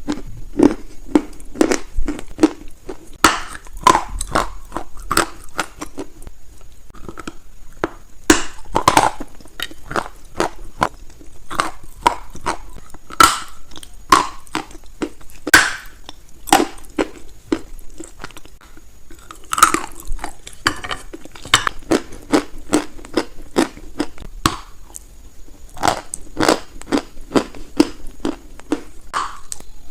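Close-miked biting and chewing of something hard and brittle, with many sharp, irregular crunches and grinding chews between them.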